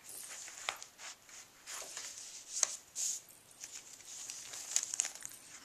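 Sheets of paper and old cookbook pages being turned and shuffled by hand: a series of short, irregular rustles and swishes.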